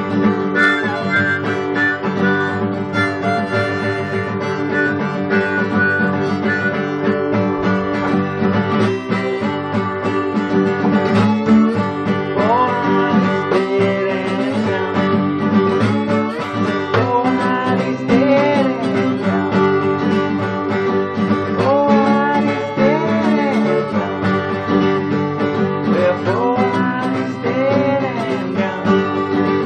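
Acoustic guitar strummed in a steady folk-blues rhythm, with a harmonica playing over it.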